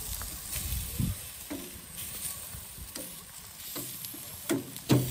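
Beef fillets sizzling on a hot charcoal grill grate, a steady hiss broken by a few sharp clicks and knocks of tongs on the grate, the loudest near the end.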